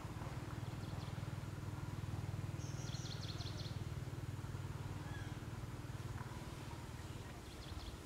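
Steady low hum of outdoor background noise, with a brief high chirping trill from a bird about three seconds in.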